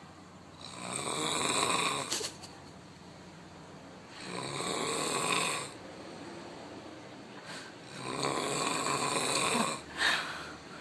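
A sleeper snoring: three long, rasping snores about every three and a half to four seconds, with a brief sharper sound near the end.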